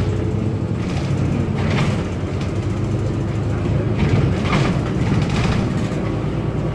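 Solaris Urbino 8.9LE city bus driving, heard from inside: steady engine hum and road noise, with a few short louder noises about two, four and a half and five and a half seconds in.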